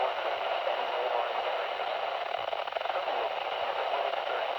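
Steady radio static hiss from a weak, narrow-band radio signal, level throughout with no clear tones or beats.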